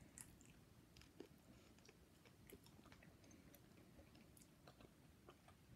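Faint chewing of jelly beans: soft, scattered small mouth clicks against near silence.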